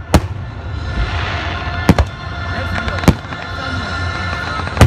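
Aerial fireworks shells bursting: five sharp bangs, two of them in quick succession about two seconds in, with a steady low rumble between the bangs.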